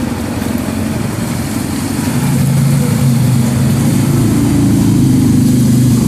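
A motor vehicle's engine running steadily as it drives slowly through floodwater toward the listener, growing louder from about two seconds in.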